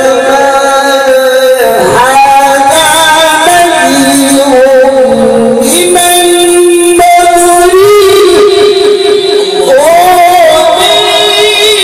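A male Qur'an reciter (qari) chanting tilawah into a handheld microphone, holding long melismatic notes that wind and step up and down in pitch with ornamental turns.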